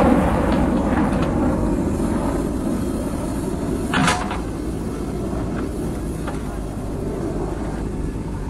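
JCB 3DX backhoe loader's diesel engine running under load as the backhoe swings and digs, its level easing over the first few seconds. A short sharp scrape about four seconds in as the bucket bites into the soil bank.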